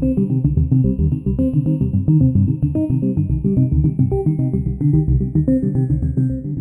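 Background music: fast, repeated plucked bass and synthesizer notes in a steady rhythm.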